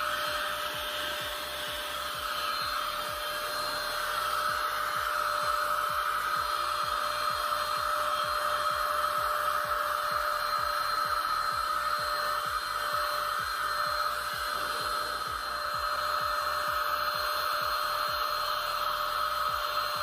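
Baseus A2 cordless handheld car vacuum running steadily: a small high-speed motor's even whine over a rush of air.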